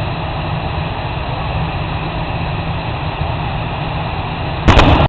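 Jet truck's jet engines running with a steady noise. Near the end it is cut off abruptly by a louder, rapidly chopped sound.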